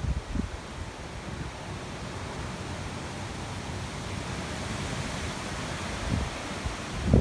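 Wind rushing over the microphone: a steady hiss with low buffeting rumbles near the start and again near the end.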